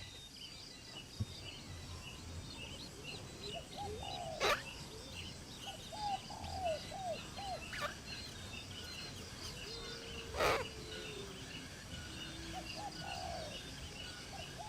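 Birds calling: groups of three or four short, arching mid-pitched calls, over a steady chatter of high chirps. Three sharp clicks stand out, the loudest about two thirds of the way through.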